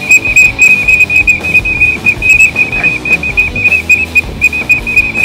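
Waterfowl whistle call blown in a loud, rapid run of short high notes, about six a second at one steady pitch, over background music.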